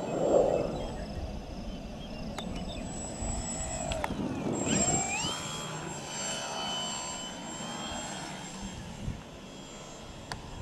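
RC aerobatic profile airplane's motor and propeller running in flight with a steady high whine, the pitch sweeping up sharply about halfway through as the throttle is opened. Gusty wind noise on the microphone, loudest near the start.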